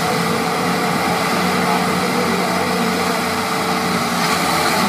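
Diesel engines of two tractors, a Mahindra Arjun and a Sonalika, running steadily under load as they pull against each other in a tractor tug-of-war.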